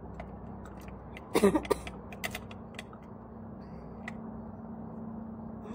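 Light metallic clicks and ticks from hand tools working on a wire shopping cart's wheel caster, with a short louder clatter of metal about a second and a half in, over a steady low hum.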